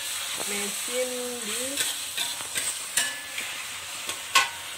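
Ground spice paste sizzling in hot oil in a metal wok, stirred with a metal spatula that scrapes and clicks against the pan, with one sharp knock near the end.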